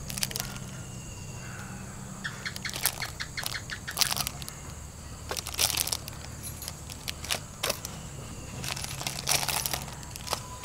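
Scattered light rustles and small taps of hands and aluminium foil while cheese shavings are laid on potatoes in a foil tray, over a low steady hum.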